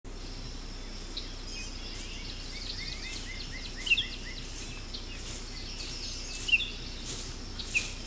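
Bushland ambience: birds calling with short chirps over a steady background hiss, including a quick run of about six falling notes a little under three seconds in and a few sharp, louder chirps later on.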